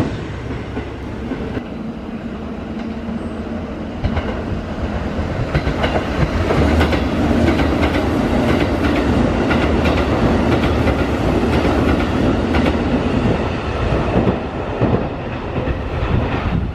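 Sanyo Electric Railway electric train passing at speed, its wheels clacking over the rail joints in a quick repeating rhythm over a steady rumble. The sound builds from about four seconds in, is loudest through the middle, and fades near the end as the last car goes by.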